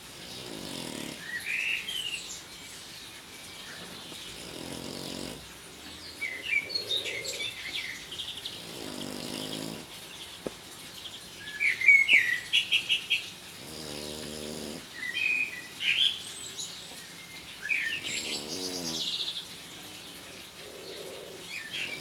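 A sleeping pet snoring in slow, even breaths, roughly one every three seconds. Bird chirps and twitters sound over it, loudest as a quick run of chirps about twelve seconds in.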